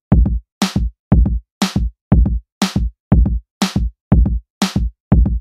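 Background music: an electronic drum-machine beat of kick drums with a snare hit about once a second.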